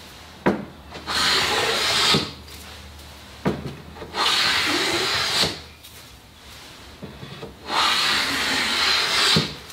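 Hand plane shaving the face of a wooden slat in three long strokes, each about a second and a half, to smooth it. There is a sharp knock shortly before each of the first two strokes.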